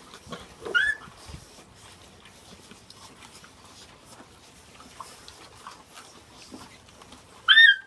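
A pack of bandog puppies chewing and tearing at a ham together, a steady patter of wet smacking and gnawing. One puppy gives a short high yelp about a second in, and another, louder yelp comes near the end.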